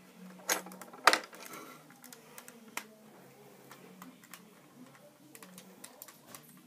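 Plastic Lego bricks clicking and knocking as a brick-built musket is handled and a loose piece is pressed back on. There are a few sharp clicks, the loudest about a second in, over a faint low hum.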